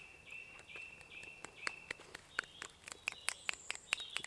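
Finger snapping with both hands, poetry-slam style: a quick run of sharp snaps starting about a second in. A bird repeats a short high note several times through the first half, and a higher, thinner birdsong comes near the end.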